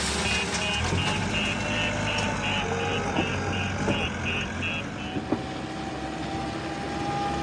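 JCB 3DX backhoe loader's reversing alarm beeping about three times a second over its diesel engine running. The beeping stops about five seconds in, while the engine keeps running.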